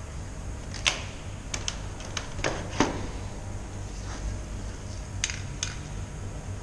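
Metal aerosol spray cans and a metal paint box being handled: a scatter of sharp clicks and clinks, a cluster between one and three seconds in and two more a little after five seconds.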